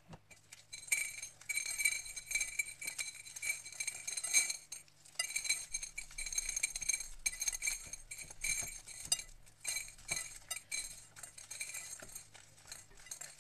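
Dried popcorn kernels being rubbed off the cob by hand, clicking and rattling into a bowl in quick runs with short pauses.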